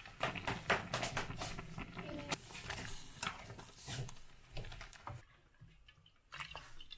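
Dense wet clicking and clatter of food and dishes being handled, as cooked noodles go into a ceramic bowl; after about five seconds it drops to a few quieter clicks of a spoon in braised beef stew.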